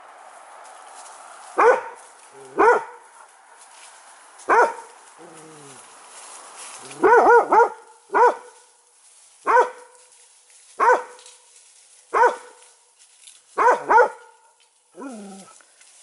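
An animal barking: short, sharp barks about every one to two seconds, with a quick triple bark in the middle and a double bark near the end. A few fainter, lower calls falling in pitch come between them.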